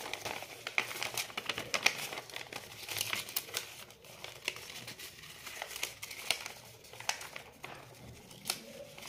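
A sheet of paper being handled, folded and creased by hand: irregular crinkles and crackles, thicker in the first few seconds.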